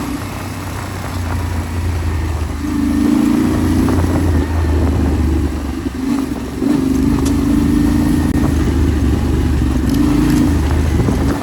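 Yamaha Ténéré 700's parallel-twin engine pulling off-road, the throttle opening and easing off several times so that the engine note swells and drops back.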